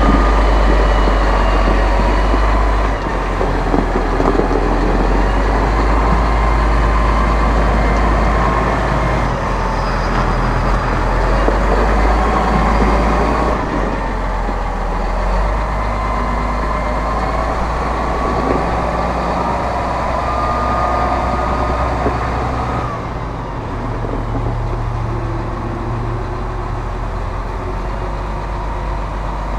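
The 7.4-litre AGCO Power six-cylinder diesel engine of a 2015 Massey Ferguson 7624 tractor running under way, with a steady low drone and a thin whine that drifts in pitch above it. The tractor moves past and away, and the sound drops a little about twenty-three seconds in.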